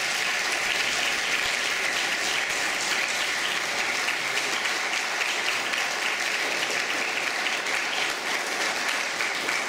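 Audience applause: a steady round of clapping.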